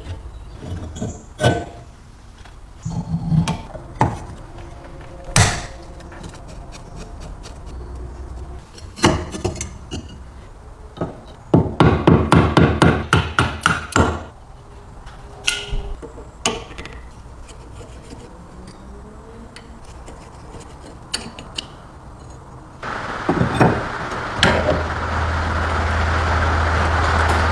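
Scattered hammer knocks, with a quick run of rapid hammer taps about halfway through, during restoration work on an old vegetable slicer. Near the end a steady machine sound with a low hum starts and keeps running.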